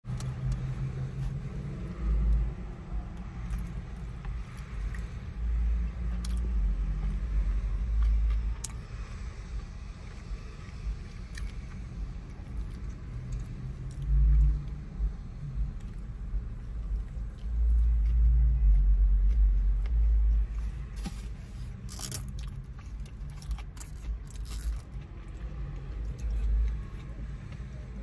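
Close-up chewing and biting of a burrito, heavy with low muffled thuds that come and go in irregular bursts. Sharp crackling clicks cluster about three-quarters of the way through.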